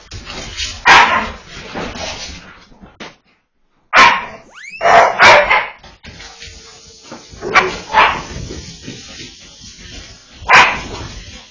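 Dogs barking excitedly in play, a loud single bark every second or two, with a short break in the sound about three seconds in.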